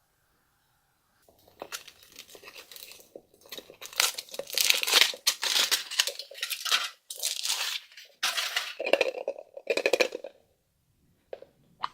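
Foil wrapper of a giant chocolate surprise egg being torn and crinkled off by hand, in irregular rustling bursts that start about a second in.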